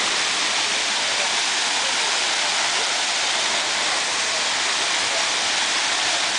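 Steady rushing hiss of running water, even and unbroken.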